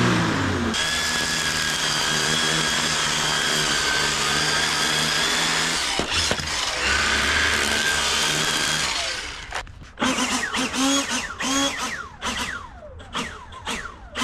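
String trimmer motor running with a steady high whine while it cuts along the lawn edge. It winds down around nine seconds in, and is followed by a run of short bursts, about two a second, each falling in pitch.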